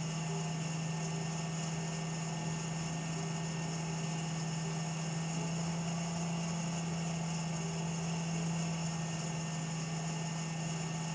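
Watchmaker's lathe running at a constant speed, spinning bar stock in its collet, with a steady low motor hum and an even hiss.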